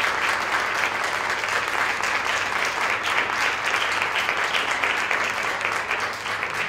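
Audience applauding: many people clapping steadily at the close of a talk.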